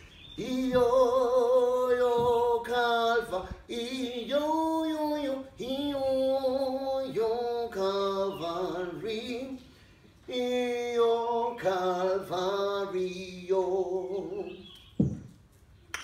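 A single voice singing unaccompanied, holding long notes in two phrases with a short pause about ten seconds in. A sharp knock sounds near the end.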